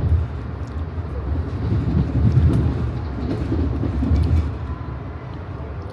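Low, steady rumble of a passenger train car rolling along the track, heard from inside the coach, growing louder for a moment around the middle.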